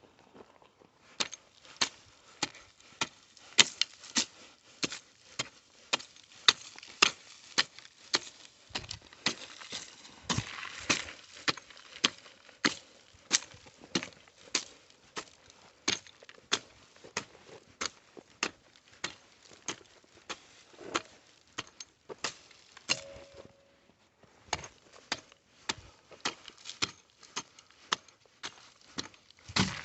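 A hand scraping tool chopping into dirt and weeds over and over, about two sharp strikes a second, with a short break about three-quarters of the way through.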